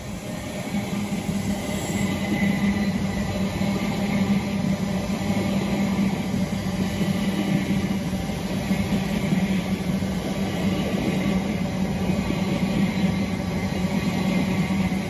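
Class 701 Aventra electric multiple unit passing close by, its wheels running on the rails with a steady low hum. The sound swells over the first second, then holds steady as the long train goes by.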